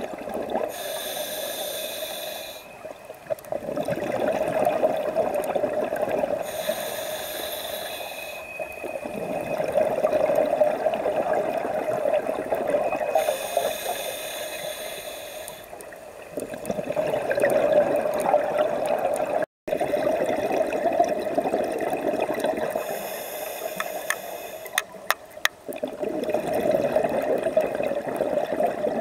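Scuba diver breathing through a regulator underwater: a hissing inhale followed by a rush of exhaled bubbles, the cycle repeating about every six to eight seconds. A few sharp clicks come about three quarters of the way through.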